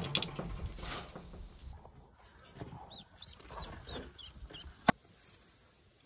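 Ducklings peeping: a run of short, high chirps in the middle, over rustling and handling noise, with one sharp click near five seconds in.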